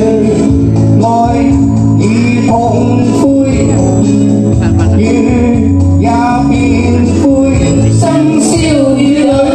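A man and a woman singing a duet into handheld microphones over instrumental accompaniment.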